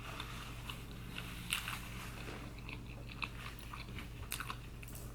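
A person chewing a mouthful of food close to the microphone, with soft, scattered mouth clicks and smacks. The sharpest come about a second and a half in and again after four seconds.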